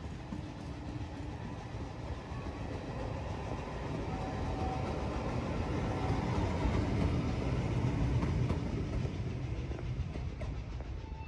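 A rake of passenger coaches rolling past on the line, their wheels clattering over the rails. The sound grows louder as the last coaches go by and then eases off as the train leaves.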